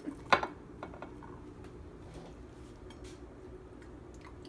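A single short clink of a ceramic plate as the gelatin is lifted off it, followed by a few faint handling ticks over a steady low hum.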